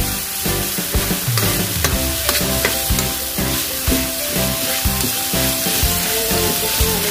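Oil sizzling in a pan as food is sautéed, with a spatula stirring and clicking against the pan, over background music.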